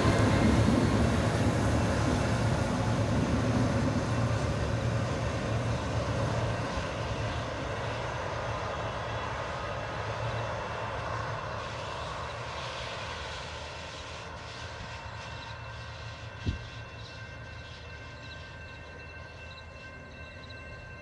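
Amtrak Pacific Surfliner train rolling away on the tracks, its rumble fading steadily as it recedes. A single sharp knock about three-quarters of the way through.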